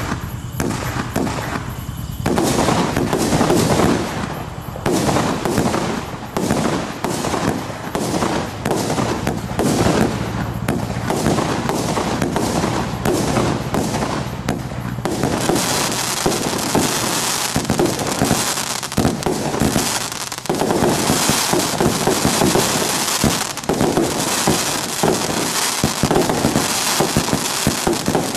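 Absolute Fireworks Starburst 50-shot cake firing: a continuous rapid run of shots and bursts. The firing grows denser and more hissy from about halfway through.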